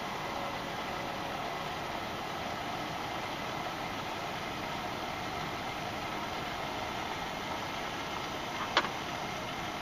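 Wood campfire burning, with a steady rushing hiss and one sharp crackle near the end.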